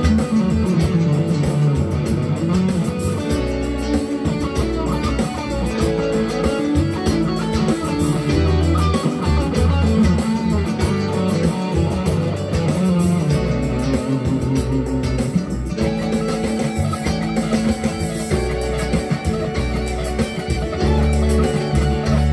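GEARIT GST 100 Strat-copy electric guitar being played, with changing notes and chords over held low notes.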